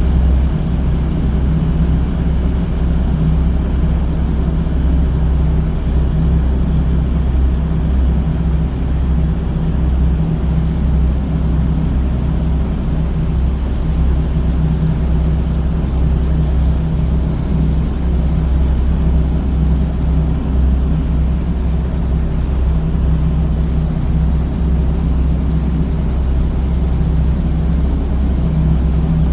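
Fishing boat's engine running steadily under way: a constant low drone.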